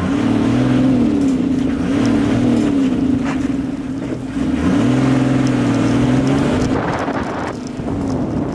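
Safari vehicle's engine driven hard along a dirt track, its note wavering up and down with the throttle, dropping away briefly about four seconds in.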